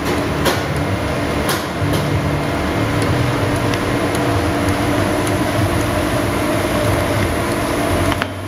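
Ding-Han DH808-M mochi forming machine running with a steady motor hum, with two sharp clicks in the first two seconds.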